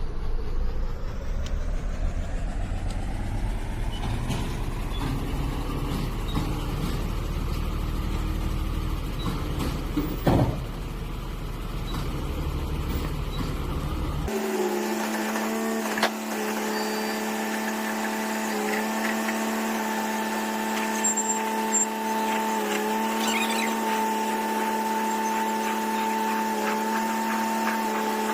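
Heavy truck engine running with a deep rumble and a brief sharp burst about ten seconds in. About halfway through, the sound changes abruptly to a steady machine drone with overtones, with a few clicks over it.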